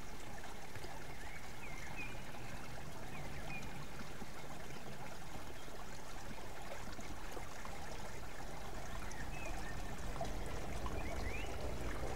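Steady rushing outdoor ambience with a low rumble underneath, and faint short high chirps scattered through it.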